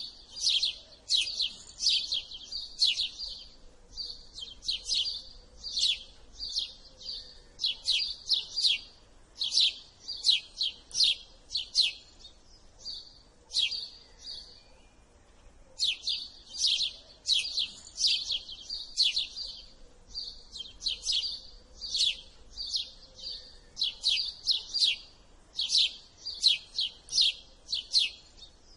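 House sparrow chirping: short, bright chirps repeated in quick runs of several a second, with a brief lull near the middle.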